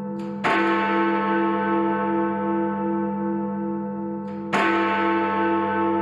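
Big Ben, the Great Bell in the Elizabeth Tower of the Palace of Westminster, striking the hour: two heavy strokes about four seconds apart. Each stroke rings on in a long, wavering hum that carries under the next.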